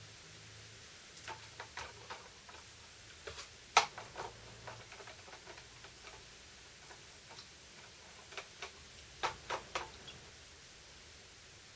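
Scattered light clicks and taps from small drill-motor parts and tools being handled during cleaning. They come in irregular clusters, with the sharpest click about four seconds in.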